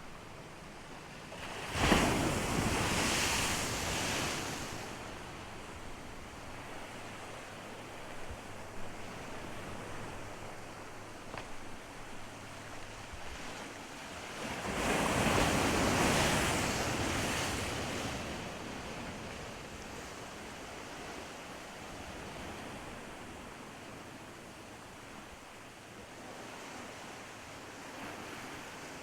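Ocean surf: waves breaking on the beach, two large breaks about two seconds and fifteen seconds in, each washing away slowly into a steady rush of water.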